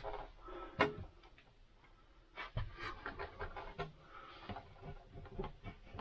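Hands working electrical wiring and a plastic plug connector into place: a run of small clicks, knocks and rustles, the sharpest click about a second in, with heavy breathing.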